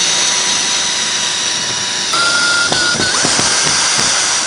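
Cordless drill driver running steadily to unscrew the screws holding the shipping crate's top cover, with a motor whine that shifts about two seconds in.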